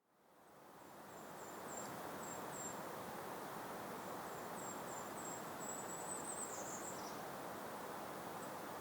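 A bird singing runs of short, thin, very high notes repeated about four a second, twice, the second run ending in a brief twittering flourish, over the steady soft hiss of a breeze. The sound fades in over the first second or so.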